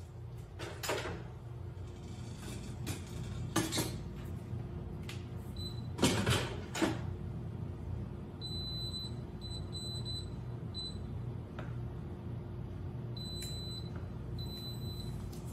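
Stainless inner pot set down into a Pampered Chef Deluxe Multi Cooker with a few knocks and clunks, the loudest about six seconds in. Then the cooker's control panel gives a series of short, high beeps, some in quick runs, as its buttons and dial are pressed to set the program and start it.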